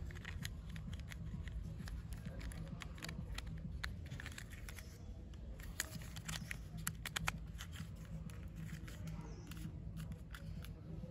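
Small plastic toy helicopter parts being handled and pressed together: a run of light plastic clicks and taps, with a few sharper snaps in the middle.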